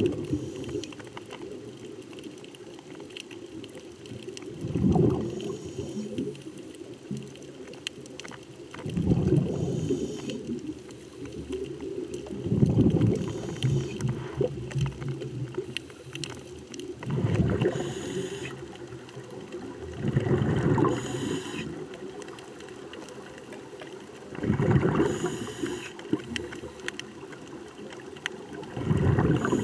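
Scuba diver breathing through a regulator underwater: a burst of exhaled bubbles rumbles out about every four seconds, each followed by a short hiss, over a steady underwater hiss.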